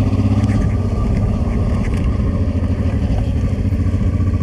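Honda Transalp's V-twin engine running with a steady note as the motorcycle rolls slowly round a bend, heard from the bike itself.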